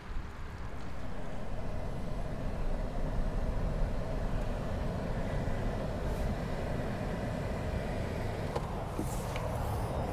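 Steady engine and road noise heard inside a car's cabin as it drives, setting in about half a second in.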